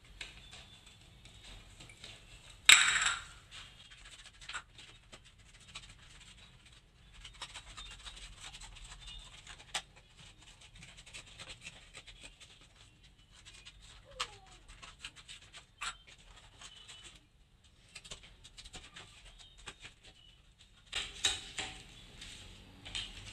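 Scattered clicks, taps and scrapes of a cut aluminium can and a sheet of cardboard being handled on a stone countertop. There is one loud scraping rustle about three seconds in and a busier run of handling noises near the end.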